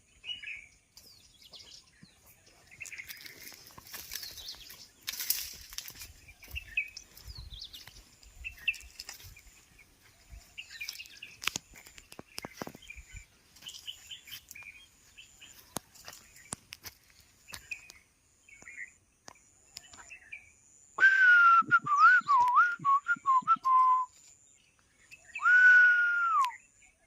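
Small birds chirping in short, scattered calls, with clicks here and there. About three-quarters of the way in comes a loud, clear warbling whistle lasting about three seconds, then after a short gap one loud whistle that falls in pitch.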